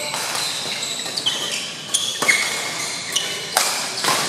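Badminton rally: rackets hitting the shuttlecock in several sharp cracks, the loudest a little past halfway, with shoes squeaking briefly on the court floor between hits.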